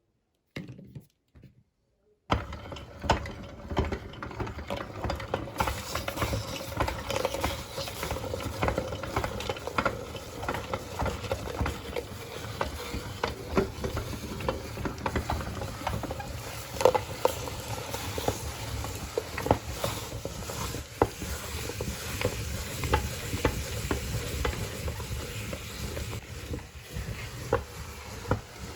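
Meat grinder crushing white chocolate candy: it starts about two seconds in, then keeps up a dense crackle full of sharp clicks and crunches.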